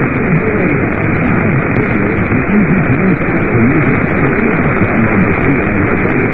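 Radio receiver static from a weak signal: a steady, muffled hiss with a voice faintly audible under it.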